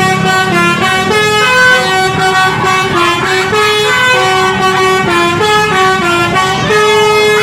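Telolet musical air horn on a tour bus playing a quick tune of short stepped notes, ending on a longer held note.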